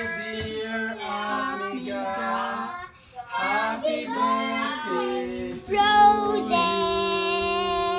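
A child singing a melody in phrases, with a brief pause about three seconds in and a long held note near the end.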